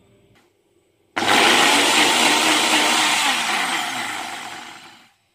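Electric blender grinding fresh green chutney of tomato, coriander, mint and garlic. It switches on suddenly about a second in and runs loudly for about three seconds, then its pitch falls and it winds down to a stop.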